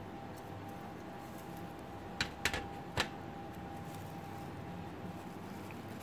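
Handling clicks: a glass jar knocking on a metal baking tray while wood shavings are packed into a wax mould, four sharp clicks about two to three seconds in, over a faint steady hum.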